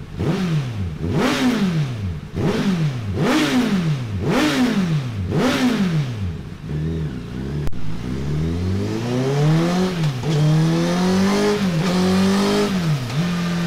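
Honda CBR1000RR Fireblade inline-four revving through a Delkevic tri-oval stainless steel slip-on exhaust. It starts with a series of quick throttle blips, about one a second. Then the revs climb and are held higher, with a few sharp dips, and end up steady.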